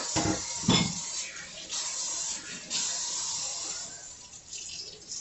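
Kitchen tap water running and splashing in the sink as grits are rinsed in a bowl, with two dull knocks in the first second.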